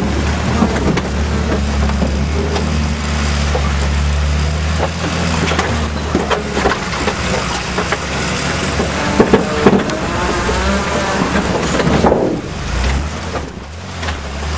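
Ford Bronco II's engine running steadily as it crawls over rough trail, with scattered knocks and clatter from the vehicle jolting over the ground and a couple of louder bangs about two-thirds of the way through. The engine note drops away near the end.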